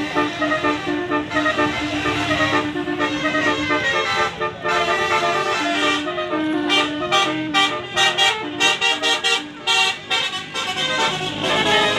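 Basuri telolet bus horn playing a melody: a quick run of stepped horn notes, breaking into short staccato toots about halfway through.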